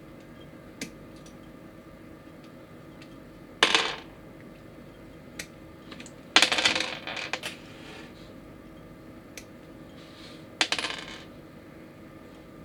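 Small hard plastic model-kit parts clattering onto a hard surface three times, the middle one longest and rattling on for about a second, with a few light clicks of pieces being handled between.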